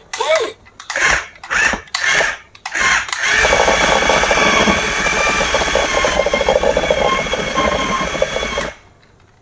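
Battery-powered remote-control toy's small electric motor and plastic gears running with a steady buzzing whine for about five seconds, then stopping suddenly. Before it come a few short bursts of sound.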